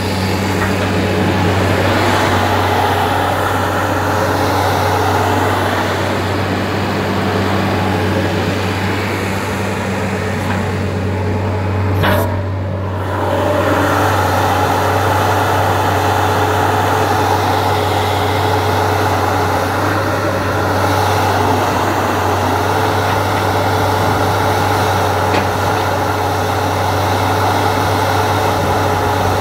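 Terex TC35 mini excavator's diesel engine running steadily as the operator swings the upper structure and moves the boom and bucket, with a brief click and momentary drop in level about twelve seconds in.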